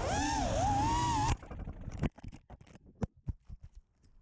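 5-inch FPV racing quadcopter's brushless motors (Velvet 2206 2300KV) whining, the pitch swooping up and down with the throttle, over rumbling wind noise. About a third of the way in the sound cuts off abruptly, leaving scattered quiet clicks and taps.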